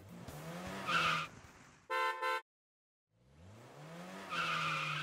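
Cartoon car sound effects: an engine revving up with a rising pitch, two quick horn beeps about two seconds in, then after a short gap the engine revs up again and holds, with a high hiss.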